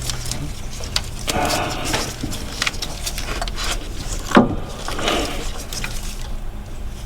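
Hands working on the engine's fuel injector wiring harness: irregular clicks, knocks and rustles of plastic connectors and wiring being pried and pulled loose, with a brief louder sound about four seconds in.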